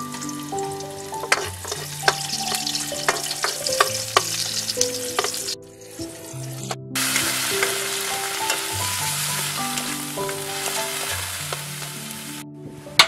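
Garlic and onion sizzling in oil in an iron wok, with a wooden spatula scraping and knocking against the pan. After a short break near the middle, a louder sizzle as horn snails are stirred in the hot wok.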